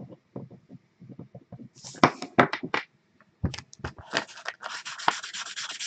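Felt-tip marker scribbling back and forth on a sheet of paper, blacking out a line of a printed list: a run of quick scratchy strokes starting about two seconds in and getting denser toward the end.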